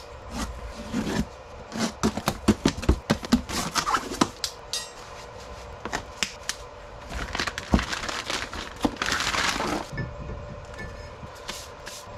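A new brake rotor being unpacked and fitted: the cardboard box opened with crackling and tearing, a crinkling rustle of the plastic bag around the rotor about two-thirds of the way through, and irregular clicks and metallic clinks as the rotor is handled and set onto the wheel hub.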